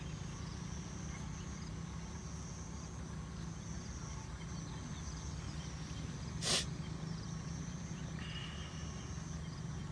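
Outdoor background of a steady high-pitched insect trill over a low hum, with one short sharp sound about six and a half seconds in.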